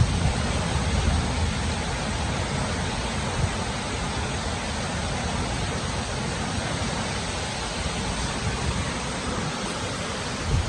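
Steady rush of storm rain and wind, with gusts rumbling on the microphone, strongest at the very start.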